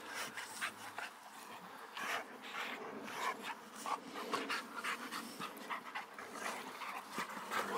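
Two boxer dogs play-wrestling, panting in quick, short breaths.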